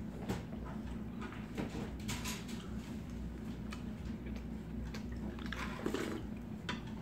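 A person eating: a few light clicks of metal utensils against dishes, and soft chewing and biting, over a steady low hum.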